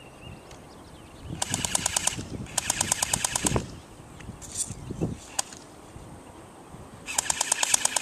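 Airsoft electric gun firing on full auto in three short bursts of about fourteen shots a second: one under a second long, a slightly longer second, and a third near the end. A couple of single sharp snaps fall between them.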